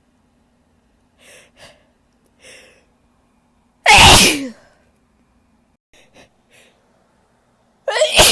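A woman sneezing: two quick breaths in, then one loud, forceful sneeze about four seconds in, a few small sniffs, and a second loud sneeze starting near the end.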